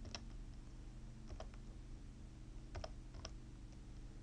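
A few sharp computer clicks, some in quick pairs, from a mouse and keys working the point-of-sale screen, over a steady low hum.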